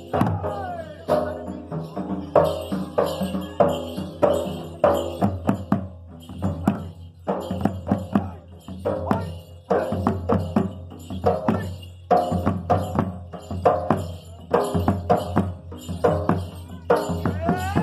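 Danda Nacha folk music: a barrel drum beaten with a stick in sharp strokes several times a second, with jingling high percussion and a melody line over the beat.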